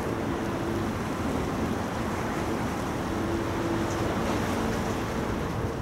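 Wind rumbling on the microphone over the steady wash of harbour water, with a faint low hum that comes and goes.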